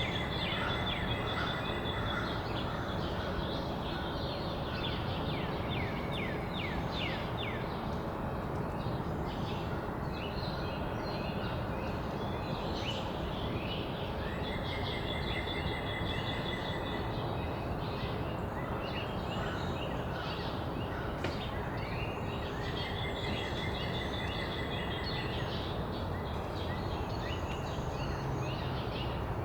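Backyard songbirds calling and singing, with a trilled song phrase of two to three seconds repeated about every ten seconds and quick short calls between, over a steady background hum.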